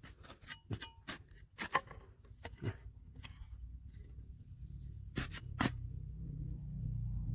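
Scattered sharp clicks, knocks and scrapes of stones and gravel being dug and handled, over a low steady rumble that grows a little louder near the end.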